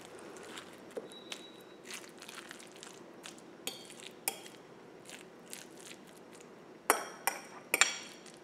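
Metal spoon mixing and mashing guacamole in a bowl: soft, irregular scraping and squishing, with a few ringing clinks of the spoon against the bowl. The loudest clinks come in a quick cluster near the end.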